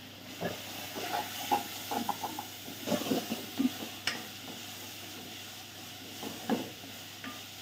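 Wooden spatula stirring minced meat and green peppers in a steel pot, scraping and knocking against the pot irregularly, over a steady sizzle of frying. The strokes are busiest in the first few seconds and come again briefly near the end.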